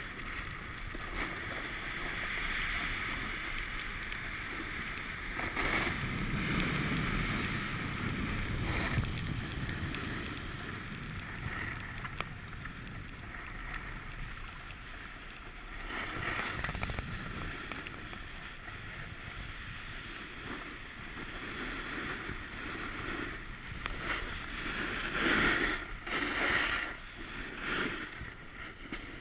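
Wind rushing over the microphone, mixed with the hiss and scrape of edges sliding on packed snow while riding down a groomed piste. It swells louder in surges, most strongly a little before the end.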